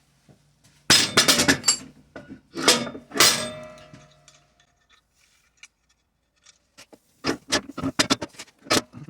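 Hard metal items clinking and clattering as they are handled on a workbench, in two bursts: one about a second in that ends with a short ringing tone, and another from about seven seconds in.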